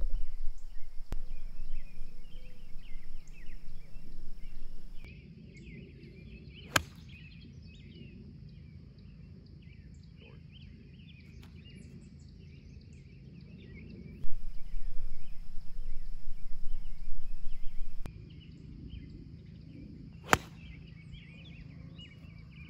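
Two crisp golf iron strikes on the ball from the tee, one about seven seconds in and one near the end, with birds chirping throughout. A low rumble fills two stretches, at the start and again for a few seconds about two-thirds through.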